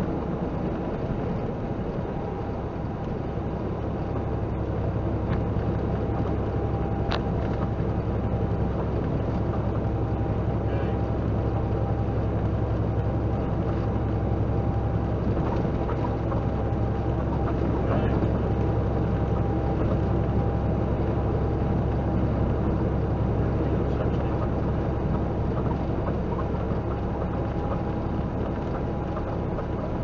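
Steady low drone of a semi truck's engine and road noise heard from inside the cab while cruising at highway speed, with a single sharp click about seven seconds in.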